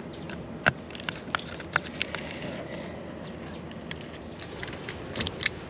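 Irregular light clicks and taps of a screwdriver turning out the small screws inside the face of a plastic 50-amp RV power inlet, with the inlet housing knocking in the hand.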